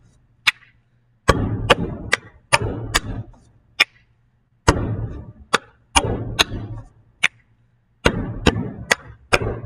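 Hands patting flat on a wooden desk and clapping, mixed with sharp finger snaps, in a repeating hand-rhythm pattern of a few strokes every couple of seconds.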